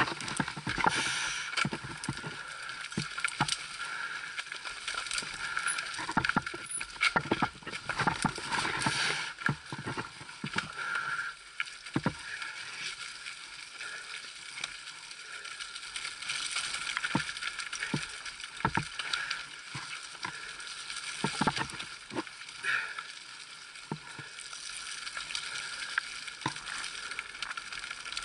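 Mountain bike descending a rough dirt and rock trail, picked up by a camera mounted on the bike: a steady rush of tyre and trail noise, with the chain and frame rattling and many sharp clunks as the wheels hit rocks and roots.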